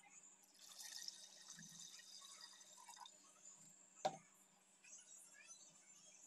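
Faint trickle of water being poured into a clay cooking pot over raw mutton pieces, with a sharp click about four seconds in.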